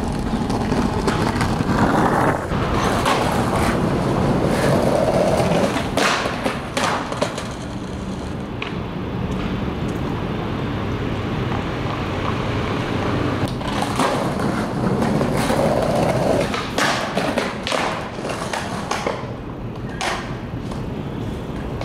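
Skateboard wheels rolling over concrete and paver stone in two long stretches. Several sharp clacks of the deck and wheels slapping down on the pavement are scattered between them.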